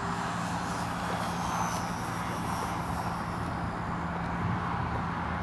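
Electric motor and propeller of a ParkZone Spitfire radio-controlled model plane running steadily overhead at a distance, over a rush of wind on the microphone.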